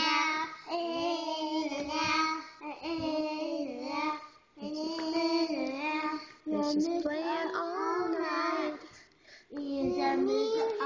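Young children singing, with no accompaniment. They sing in short phrases with brief pauses between lines.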